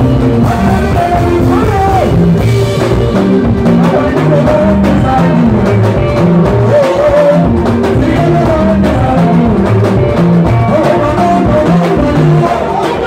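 A live Congolese rumba band playing a sebene, the fast dance section: electric guitar lines over bass and drum kit, with singing over the band.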